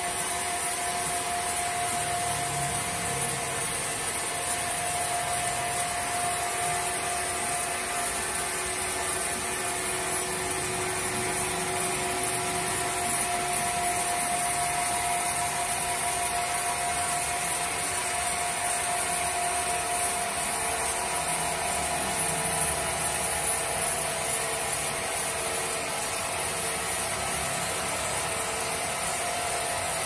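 Multi-blade sawmill saw running steadily as it saws lengthwise through a large squared timber: a continuous machine whine over dense cutting noise, even throughout.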